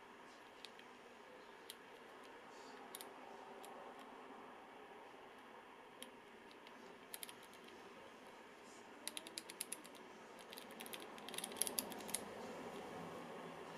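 Faint clicking of a Panasonic GH5's rear control dial and buttons being worked by thumb: a few single clicks, then quick runs of dial clicks about nine and eleven seconds in, over a steady low hiss.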